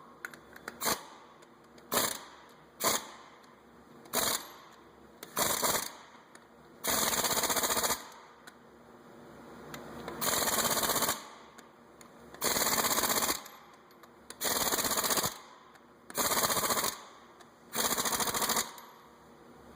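Impact gun fitted with a torque stick, hammering lug nuts tight in a series of rattling bursts: several short blips, then about six longer bursts of around a second each. The spring-steel torque stick limits the nuts to about 100 foot-pounds.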